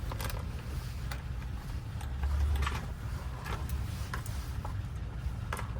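Scattered light clicks and taps of small lock parts being picked out and handled while a door lock cylinder is recoded to a key. A steady low rumble runs underneath, with a duller thud about two seconds in.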